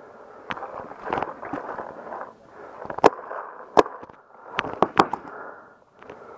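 Paintball markers firing: irregular sharp pops, with the loudest shots a little past halfway and a quick cluster a second or so later.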